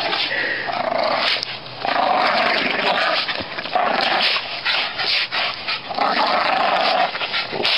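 Dog growling in a series of drawn-out growls while it clings by its teeth to a rope hanging from a tree.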